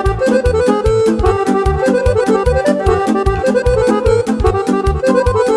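Instrumental passage of Romanian party music (muzică de petrecere): a quick lead melody over a fast oom-pah beat of bass and off-beat chords, about four bass hits a second.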